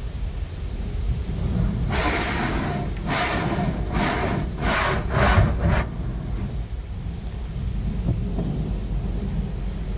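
Low, steady rumble inside a car's cabin as it rolls slowly through a car wash hall. A run of about five short rasping swishes comes between two and six seconds in.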